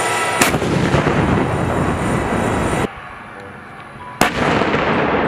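Tank cannon-fire sound effect: a sharp blast about half a second in and another about four seconds in, each followed by a long, loud rumbling noise, with a quieter lull just before the second blast.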